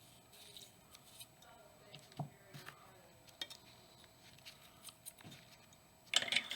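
Small metal suppressor baffles being handled in a container of cleaning solution: scattered light clicks and knocks, with a louder burst of rattling about six seconds in.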